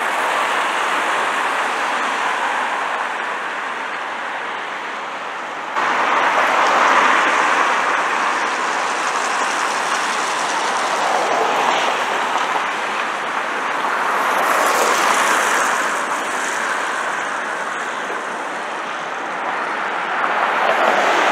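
Noise of busy street traffic, a steady wash of passing vehicles, noisy. It jumps louder about six seconds in and swells as vehicles pass.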